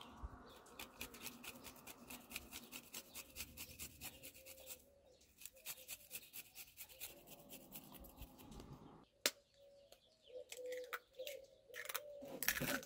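A small knife blade tapping quickly against a glass bowl as garlic is minced in it, a fast run of light clicks that stops about nine seconds in. A dove coos softly in the background throughout, and near the end an egg cracks sharply on the bowl.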